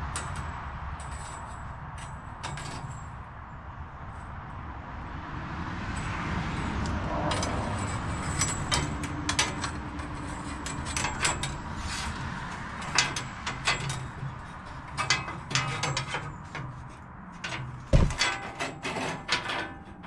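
Thin steel band blade being handled on an EZ Boardwalk 40 band sawmill during a blade change, walked off and onto the blade wheels. It gives irregular metallic clicks, ticks and rattles against the frame and wheels, thickening in the second half, with one heavier knock near the end, over a steady low rumble.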